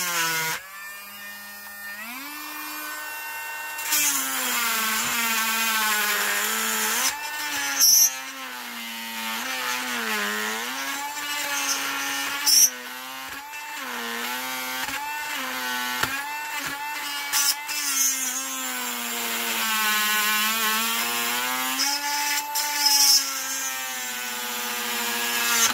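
Cordless rotary tool running under load, cutting at the metal wire that holds the cape to the resin statue. Its high whine keeps dipping and recovering in pitch as the bit bears in, with a few sharp snaps along the way.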